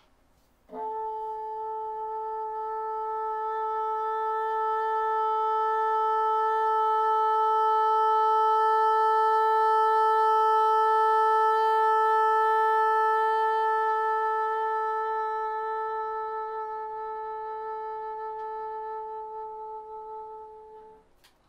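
Bassoon playing a single long tone: one held note that swells from moderate to loud by the middle, then fades away and stops just before the end. The tone holds stable while the pitch wanders slightly.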